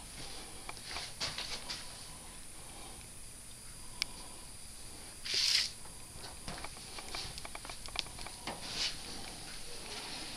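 Faint handling noise: scattered light clicks and rustles, with a sharp click about four seconds in and a brief louder rustle just after five seconds.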